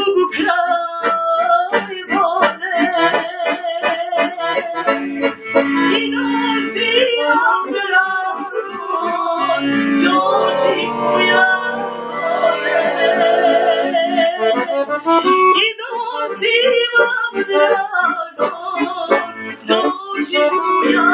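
A woman sings a folk song in full voice to a piano accordion accompaniment, her wavering melody over the accordion's steady held notes.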